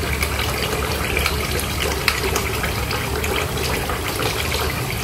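Kitchen tap running in a thin steady stream into a stainless steel sink, with a metal spoon now and then ticking lightly against a ceramic bowl as spices soaking in water are stirred.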